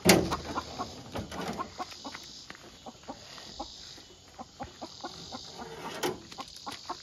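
Laying hens clucking inside a wire cage as it is handled and lifted, with scattered knocks and a loud clatter right at the start and another about six seconds in. The hens are scared by the move.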